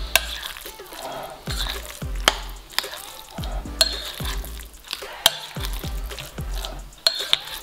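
A utensil stirring a thick, wet cottage-cheese and apple filling in a glass bowl: soft squelching with irregular sharp clinks against the glass.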